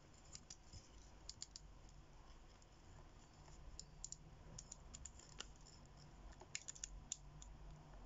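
Rotating bezel of a TAG Heuer Aquaracer GMT watch being turned by the fingers, giving faint, irregular clicks, some in quick little clusters, as it steps round.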